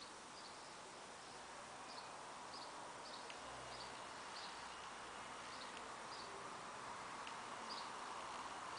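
Faint garden ambience with a small bird chirping: short, high chirps repeated about every half second over a soft steady hiss.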